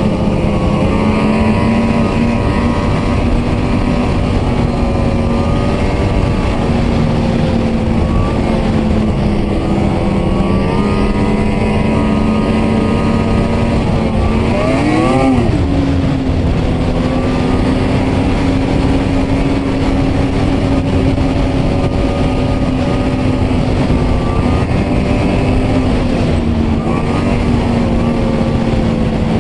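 Ski-Doo two-stroke E-TEC snowmobile engine running steadily at trail speed, with track and wind noise under it. About halfway through the engine pitch jumps up quickly and falls straight back, then settles to a steady run again.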